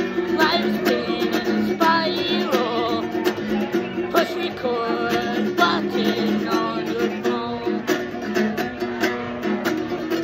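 Small acoustic guitar strummed with a steady rhythm, with a man singing over it.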